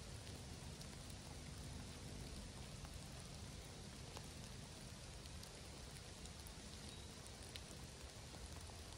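Steady light rain falling, an even hiss with scattered single drops ticking at irregular moments.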